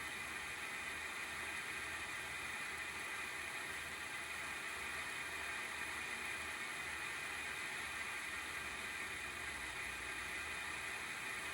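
Cooling fan of an ASUS GeForce RTX 3060 12GB Phoenix graphics card (an FDC10U12D9-C fan) running under benchmark load with a steady whirring hiss and a low pulsing flutter underneath. The noise is abnormal and marks a failing fan, with either a wobbling shaft or bearing oil run dry.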